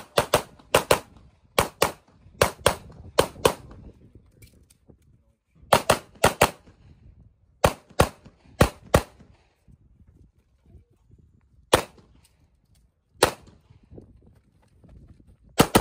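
Handgun shots, mostly fired in quick pairs a fraction of a second apart, in strings broken by pauses of one to two seconds; in the second half the shots come singly, a second or more apart.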